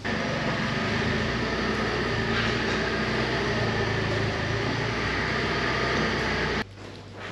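Nissan forklift running under load as its hydraulic mast lifts a heavy grain auger, a steady mechanical drone that starts abruptly and cuts off about six and a half seconds in.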